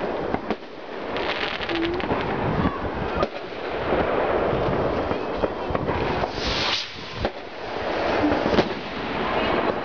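Fireworks and firecrackers going off in a dense, continuous barrage of overlapping bangs and crackling, with a brief loud hiss about six and a half seconds in.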